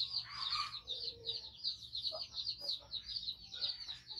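High-pitched chirping repeating rapidly, about six pulses a second and without a break, with a short lower call about half a second in.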